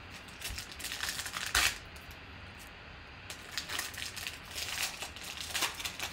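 Foil wrapper of a Panini Select football card pack being torn open and crinkled by hand. The crackling comes in two spells: the first has a sharp, loud rip near its end, and the second runs from about three to six seconds in.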